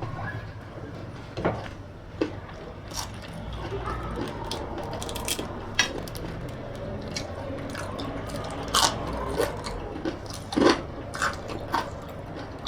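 Irregular food-preparation sounds: soft crunches, squishes and taps of ingredients being handled, with a low steady hum underneath.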